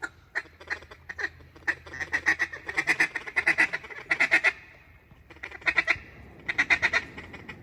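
Mallard duck calls blown by hunters working ducks: several fast runs of loud, nasal quacks, with a short pause about five seconds in before two more runs.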